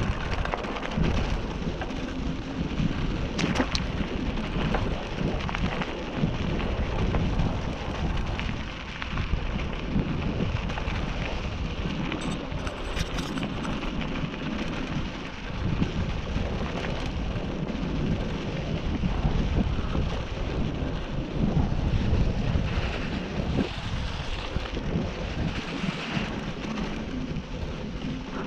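Steady rough noise with a heavy low rumble and occasional faint clicks: wind buffeting and rattle on a camera microphone while riding a rough off-road trail.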